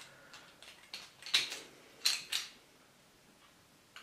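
Hard plastic clicks and scrapes of a Transformers action figure's parts as a toy sword is worked into its jet mode. The sharp clicks come in a short cluster over about the first two and a half seconds.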